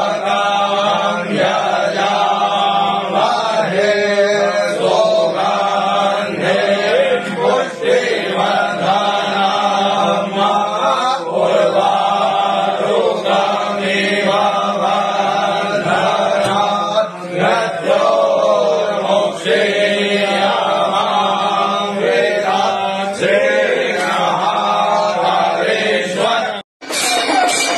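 A voice chanting Sanskrit worship mantras to Shiva, over a steady low drone. Near the end it cuts off abruptly, and music with drums begins.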